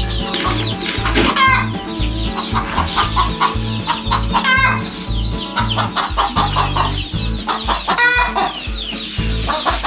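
Chickens clucking and calling in short repeated calls over background music with a steady bass line.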